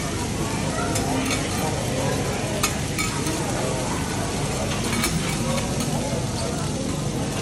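Food sizzling on a hot teppanyaki steel griddle while metal spatulas scrape across the plate, with a few sharp metal clicks of spatula on steel.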